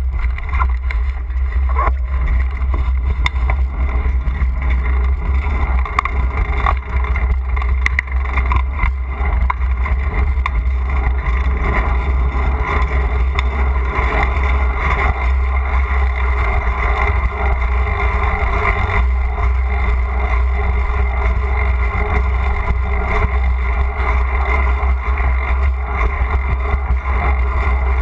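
Wind buffeting the microphone of a bicycle-mounted GoPro while riding: a loud, steady low rumble with a hiss above it and a few short knocks.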